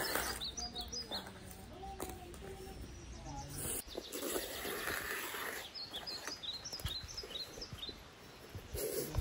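Small birds chirping in short high bursts, once about a second in and again around the middle, over steady outdoor background noise.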